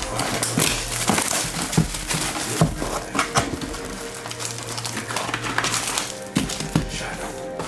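Plastic shrink-wrap being picked and torn off a cardboard trading-card hobby box, then the lid opening and foil card packs rustling as they are lifted out, with many short handling clicks and crinkles. Background music plays underneath.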